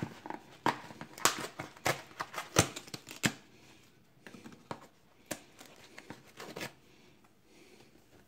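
Cardboard cereal box of four-grain flakes being handled and torn open: a quick run of sharp, irregular crackles and clicks for about three seconds, then sparser ones until about seven seconds in.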